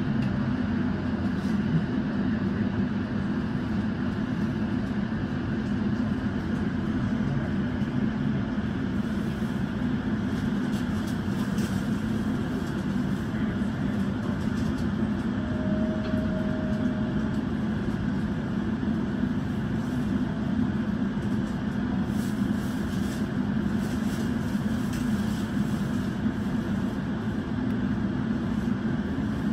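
JR Central 313 series electric train running along the line, heard from inside the front of the train: a steady rumble of wheels on rail with a constant low hum. A faint short tone sounds about halfway through.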